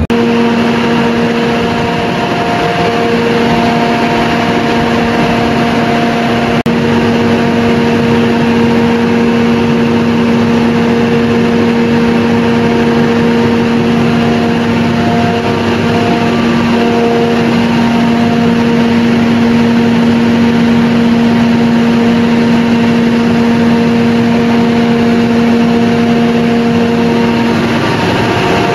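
Large Cummins diesel generator set running steadily at constant speed, a loud even engine drone with a steady hum, on a test run after a new air circuit breaker was fitted.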